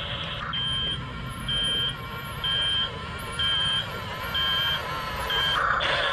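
Reversing alarm on a Double E 579 RC bulldozer: six short high beeps about once a second. Near the end the beeps stop and the toy's steady engine hum comes back.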